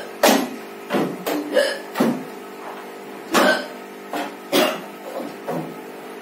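A woman hiccupping over and over: about ten short, sharp hiccups at uneven spacing, some coming in quick runs.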